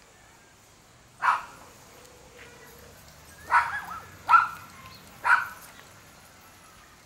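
A dog barking: four short, sharp barks, one about a second in and three more in quick succession a couple of seconds later.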